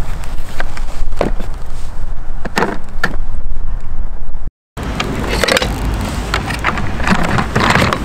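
Plastic parts of a Bosch GAS18V-12MC cordless dust extractor being handled, with the filter, container and latches giving several clicks and knocks, over a steady low rumble. The sound cuts out briefly about halfway through.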